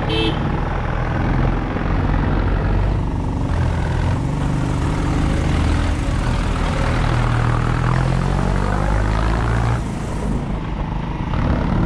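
A vehicle engine running under load as it drives up a climb, with a steady rushing noise over it. It eases off briefly about ten seconds in.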